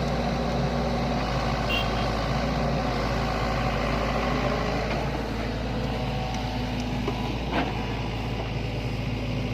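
Sany hydraulic excavator's diesel engine running steadily as it works dirt, with a single sharp knock about seven and a half seconds in.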